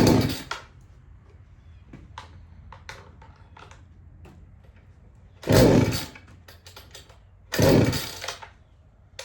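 Two-stroke chainsaw's recoil starter cord yanked three times, each pull a short ripping whirr, with light clicks of handling between. The engine does not catch and run.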